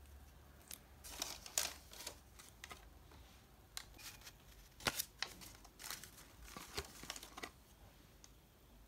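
Paper and card rustling as small items and a paper thank-you card are handled and set into a kraft-paper-lined card box: a string of short, irregular crinkles and light taps.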